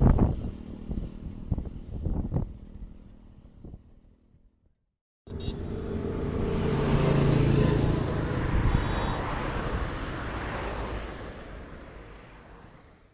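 Road noise heard from a moving bicycle on a highway: wind rumbling on the microphone and passing motor traffic. It comes as two clips. The first fades out, and after a brief silence the second swells to a peak, as if a vehicle is going by, then fades away.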